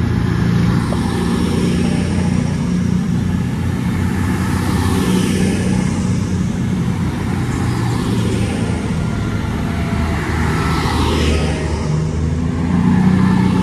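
Class 221 Super Voyager diesel-electric train pulling out of the station, its underfloor diesel engines running loudly as the cars roll past. A higher whine swells and fades twice as cars go by.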